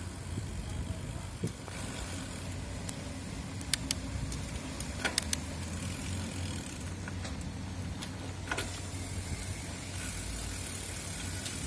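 Bicycle rolling along a concrete path: a steady low rumble of tyres and wind, with a few sharp clicks in the middle.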